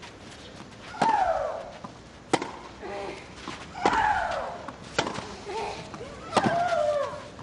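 Tennis rally on a clay court: the ball is struck about every second and a half, back and forth, and every other stroke comes with a player's loud shriek that falls in pitch.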